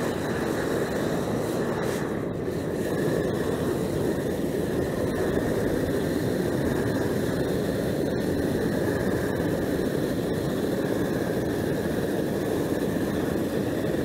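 LP propane hand torch burning with a steady rush of flame, heating rubberized asphalt crack tape to burn off its top liner and melt it onto the pavement.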